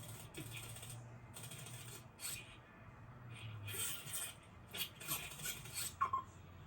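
Soft rustling and scraping noises, several short ones spread through, over a low steady hum, with a brief high note near the end.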